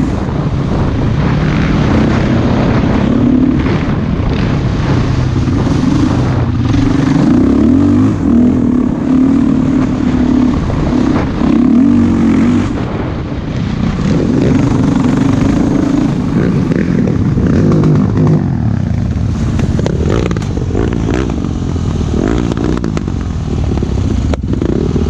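Husqvarna TE510 dirt bike's single-cylinder four-stroke engine running hard on a trail ride, its pitch rising and falling as the throttle opens and closes. It eases off near the end as the bike comes up to other dirt bikes.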